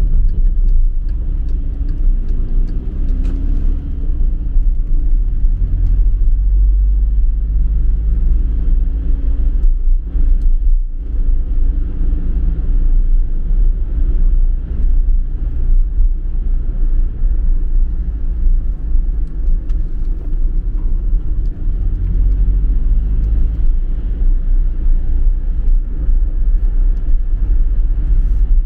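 Car engine and tyre noise heard from inside the cabin while driving: a loud, steady low rumble, with the engine note rising and falling as the car speeds up and slows. The sound dips briefly about eleven seconds in.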